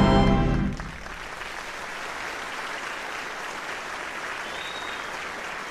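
Final chord of a brass band with theatre organ, cut off under a second in, followed by an audience applauding.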